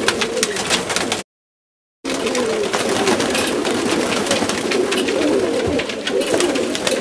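Macedonian Donek pigeons cooing in a loft, a chorus of low wavering coos over frequent short clicks and rustles. The sound cuts out completely for just under a second about a second in.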